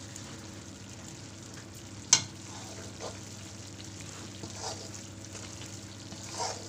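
A metal spatula stirring hot, ghee-roasted wheat flour in a metal kadai, with a faint sizzle. The spatula strikes the pan once with a sharp clink about two seconds in, and a few softer scrapes follow.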